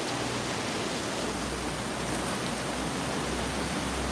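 Floodwater rushing steadily over the ground, a continuous even hiss of flowing water.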